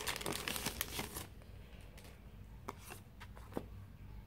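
Clear plastic packaging bag crinkling as it is opened and paper items are pulled out of it. The crinkle is dense for about the first second, then gives way to a few scattered soft rustles and clicks.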